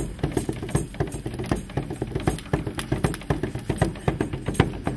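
A hand drum, a bodhrán, beaten in a fast, steady rhythm of sharp knocks.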